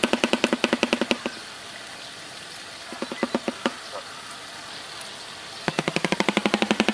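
Shoebill clattering its bill: a rapid rattle of about a dozen clacks a second that stops about a second in, a few slower single clacks in the middle, and the rapid rattle starting again near the end.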